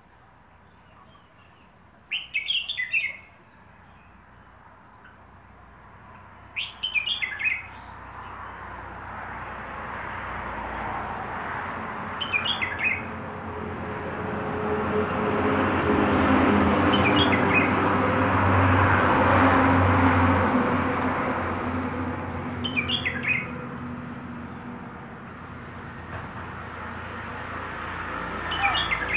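Caged red-whiskered bulbul singing short bright phrases, six times, about every five seconds. Behind it the noise of a passing engine swells up, is loudest about two-thirds of the way through, and fades.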